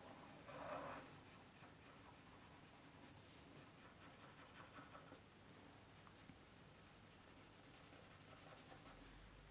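Faint scratching and rubbing of a drawing tool colouring on paper, with one short, slightly louder rub about half a second in.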